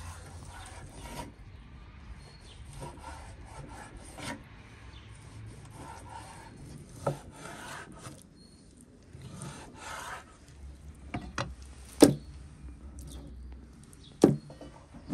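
A kitchen knife slicing through raw beef heart on a wooden cutting board: repeated short rasping strokes, with the blade knocking on the board now and then. The loudest sharp knocks come near the end.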